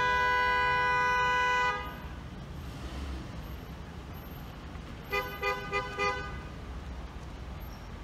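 Car horn honked by an impatient driver: one long blast that cuts off just under two seconds in, then four short, quick toots about three seconds later. A low traffic rumble runs underneath.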